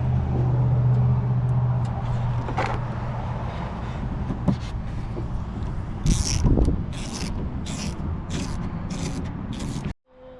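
Ratchet wrench clicking in a run of about eight even strokes, roughly two a second, as a 10mm bolt is run in loosely, over a low steady hum in the first few seconds. The sound cuts off suddenly near the end.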